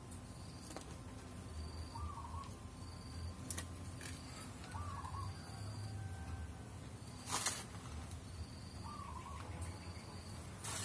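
A bird gives a short warbling call every few seconds, with faint short high chirps in between, over a low steady rumble. A brief rustle comes about seven seconds in.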